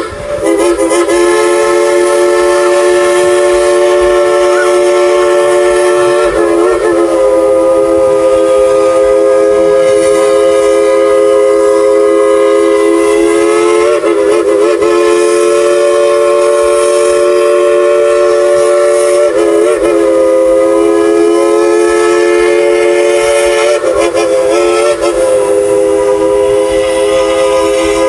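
Steam whistle of narrow-gauge steam locomotive No. 192 'Klondike Katie', a chord of several notes blown long and loud, held almost continuously and wavering briefly four times as it is eased and opened again.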